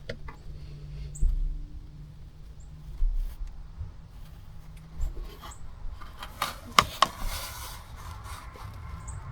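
Handling noises: a cluster of sharp clicks and knocks with some rubbing about two-thirds of the way through, over a low steady hum that fades about halfway. Faint short high chirps come now and then.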